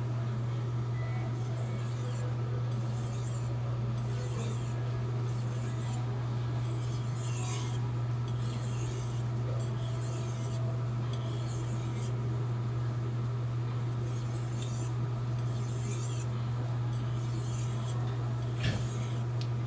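A hand-forged Blue #2 steel kitchen knife is stroked back and forth on a whetstone, making a rasping scrape about once a second, over a steady low hum.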